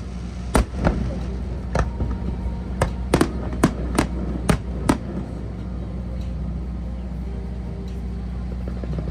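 Fireworks going off: about ten sharp, irregular bangs in the first five seconds over a steady low rumble, after which only the rumble remains.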